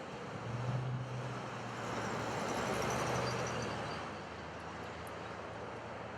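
Loaded coal train rolling past, a steady rumble of wheels on rail that swells to its loudest about three seconds in, with faint high-pitched wheel squeal.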